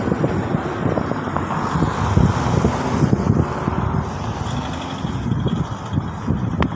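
Wind buffeting a phone's microphone outdoors: an uneven low rumble and rushing noise.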